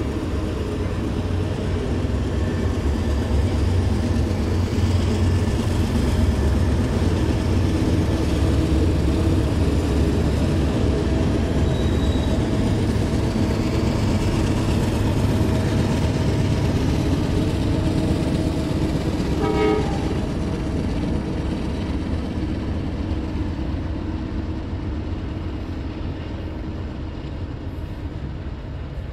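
Freight train led by several Union Pacific GE diesel-electric locomotives passing close by, the engines running with a deep, steady rumble that swells as they go past and then slowly fades.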